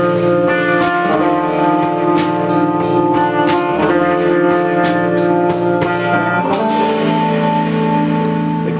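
Live indie rock band through amplifiers: electric guitar and bass holding sustained, ringing chords over drum and cymbal hits. About six and a half seconds in the drums stop and the closing chord is left ringing out at the end of the song.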